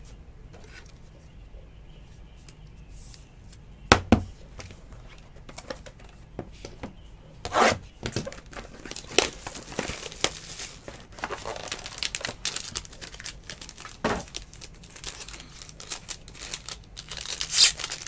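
Foil trading-card pack wrapper crinkling and being torn open by hand, the crackling growing denser through the second half and loudest near the end. A single sharp click sounds about four seconds in.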